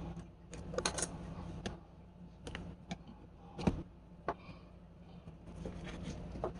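A handful of irregular sharp clicks and knocks, the loudest about three and a half seconds in, over a steady low hum.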